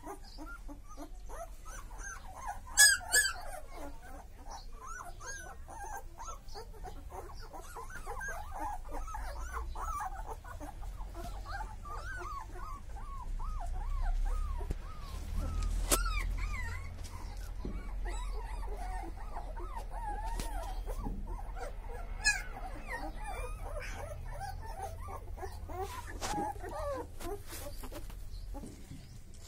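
A litter of newborn Chippiparai puppies whimpering and squeaking without pause, many small high cries overlapping, over a low rumble. A louder, sharper squeal comes about three seconds in and another about two-thirds of the way through.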